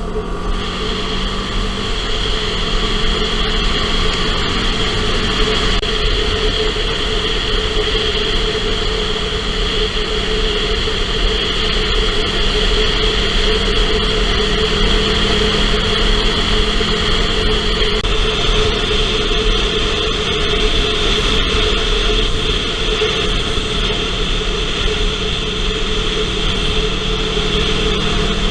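1977 Yamaha XS360's air-cooled parallel-twin engine running steadily through an aftermarket MAC exhaust, with a change in its tone about 18 seconds in.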